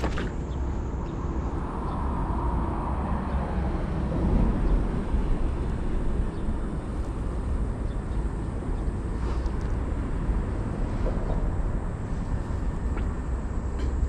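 Steady outdoor background noise with a low wind rumble on the microphone, swelling a little about two to four seconds in.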